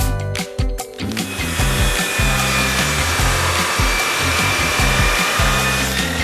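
DeWalt sliding miter saw running and cutting through steel stock, a steady grinding hiss with a high motor whine that starts about a second in. Background music with a steady beat plays throughout.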